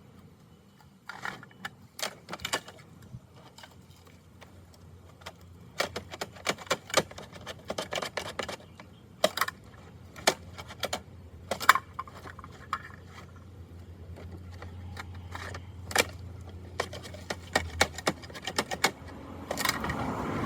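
Irregular clicks and clatter of hard plastic from a Bruder toy garbage truck and its bins being handled, over a low steady hum.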